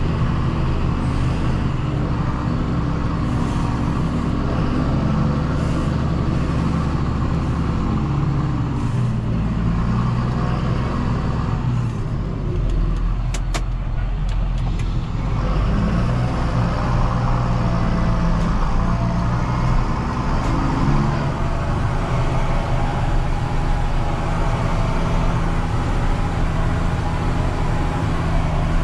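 John Deere 6930 tractor's six-cylinder diesel engine running steadily while pulling a cultivator. The engine note shifts about twelve seconds in, with a few sharp clicks shortly after.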